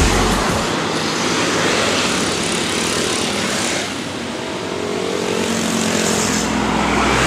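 Road traffic passing close by: a car and small motorcycles go past with a steady rush of engine and tyre noise. Near the end a heavy tanker truck's diesel engine rumbles louder as it approaches.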